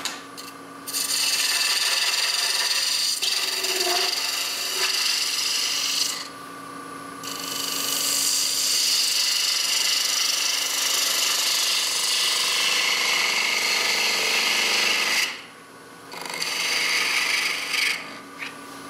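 Wood lathe running with a steady motor hum while a gouge cuts the end of the spinning wooden workpiece in three long cuts, breaking off briefly about six and fifteen seconds in.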